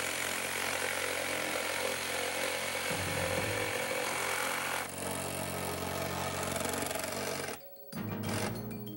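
Cordless saber saw (jigsaw) running, its reciprocating blade cutting a window opening through an OSB wall. It cuts off about seven and a half seconds in, and music with mallet-like tones comes in near the end.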